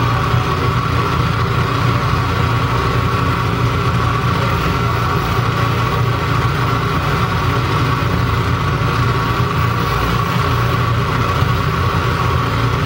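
Live electronic noise music: a dense, steady wall of glitchy noise with a low hum and a held mid-pitched tone, unchanging throughout.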